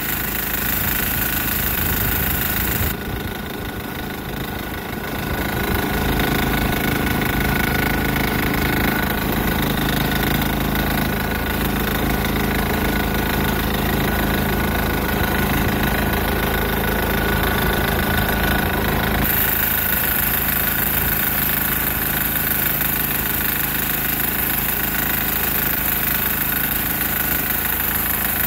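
Single-cylinder 6 hp diesel engine of a Sears Suburban garden tractor running steadily, getting somewhat louder about six seconds in.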